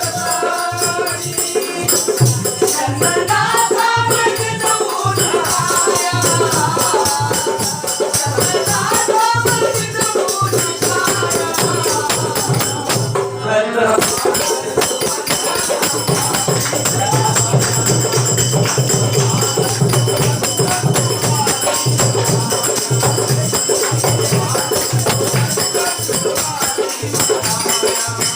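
Group devotional song: voices singing a vandan geet with jingling tambourine-like percussion. The singing drops out after about eleven seconds and the instruments carry on with a steady beat.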